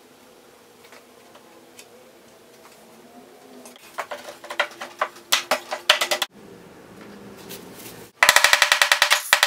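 Hardwood pieces knocking and clattering as a breadboard end is handled and seated onto the tabletop, with a cluster of irregular sharp knocks about four seconds in. Near the end comes a loud, fast, even run of sharp taps, about ten a second.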